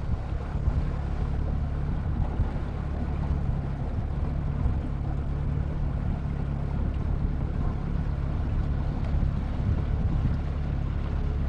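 Fishing boat's outboard motor running steadily at cruising speed while underway, with a rush of wind and water over it.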